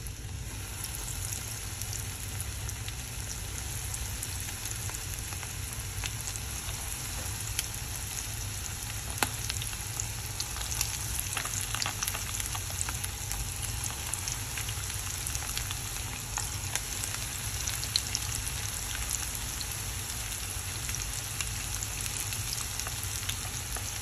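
Breaded chicken wings deep-frying in hot oil: a steady sizzle with scattered sharp crackles and a few louder pops.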